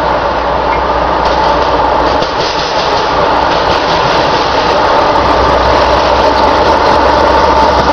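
Canadian Pacific GE AC4400CW diesel-electric locomotive approaching and passing close by, its 16-cylinder diesel running under power, with a steady whine over the engine noise. It grows louder as the locomotive draws alongside.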